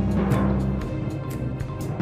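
Background music with a steady, fast drum beat, about four hits a second, over low sustained notes.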